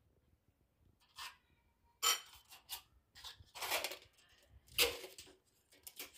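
A spoon clinking and scraping against a glass bowl as yogurt and cream are mixed into cut fruit: a string of short, sharp clinks starting about two seconds in.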